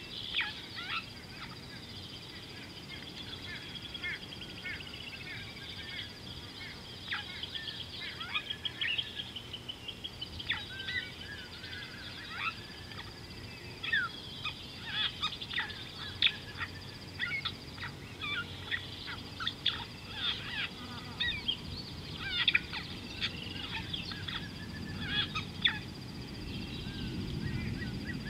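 Wild birds calling in a busy chorus of short, sharp notes and chattering runs, over a thin steady high-pitched whine. A low rushing noise builds near the end.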